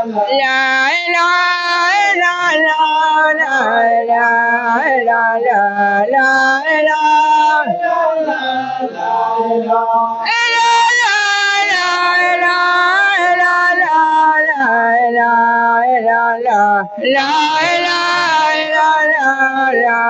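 A solo man's voice chanting an unaccompanied Islamic devotional song into a microphone, with long, ornamented held notes. The chant climbs higher and louder about ten seconds in and again near the end.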